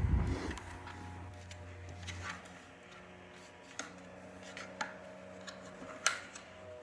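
Rechargeable camping fan's rush of air dying away as it is switched off, then a faint steady hum and several light clicks and taps, the loudest about six seconds in.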